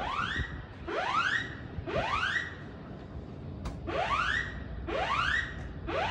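Building fire alarm sounding its evacuation tone: a repeating rising whoop, one upward sweep about every second with a skipped beat near the middle. It signals that a fire has been detected and the building should be evacuated.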